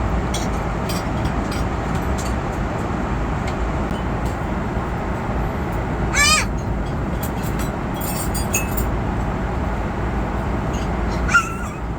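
Steady road and engine rumble of a moving vehicle, heard from inside. A short, high-pitched vocal squeal rises and falls about six seconds in, and a brief sharp sound comes near the end.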